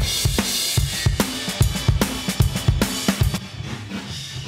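Multitrack drum-kit recording playing back: kick, snare, hi-hat and cymbals in a steady groove with reverb on them. The hits thin out and fade near the end.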